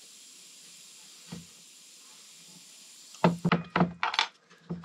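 Faint steady hiss with a small click, then about three seconds in a quick run of sharp knocks and clicks as a brake caliper's piston and seal are handled and pushed at.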